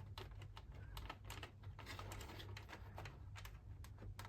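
Faint, irregular small clicks and taps of hands working at the vacuum's switch wiring, prying a stuck wire connector loose.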